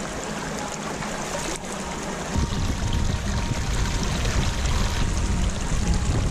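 Mountain stream splashing over rocks, with water running into a plastic bottle held in the current to fill it. A steady rushing that turns deeper and fuller about two seconds in.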